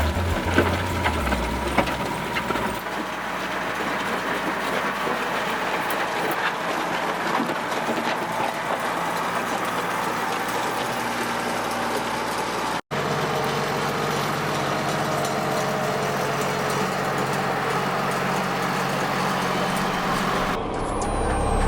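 Road grader's diesel engine running steadily at work, with a dense mechanical noise over a low hum. It cuts out for an instant about thirteen seconds in.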